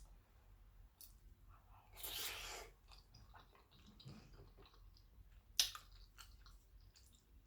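Close-miked chewing of soft baked macaroni and cheese, with small wet mouth clicks. A short rushing noise comes about two seconds in, and a single sharp click, the loudest sound, about five and a half seconds in.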